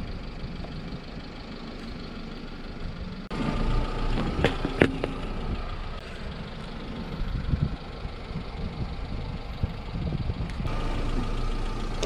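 Car engine idling with a steady low rumble as the tyre rolls on asphalt, with two sharp cracks about four and a half seconds in as an object is crushed under the wheel.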